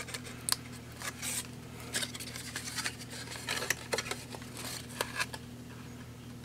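Cardstock being folded and handled: scattered light scrapes, rustles and ticks as the box's walls are bent into shape and pressed onto taped side tabs. The sounds thin out near the end.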